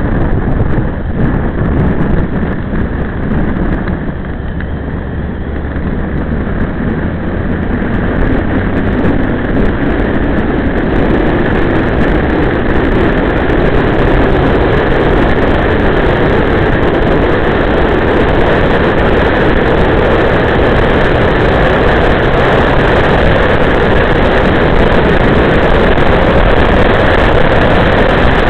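Wind rush and engine noise of a motorcycle riding on an open road. It goes quieter for a few seconds near the start, then grows louder and stays steady.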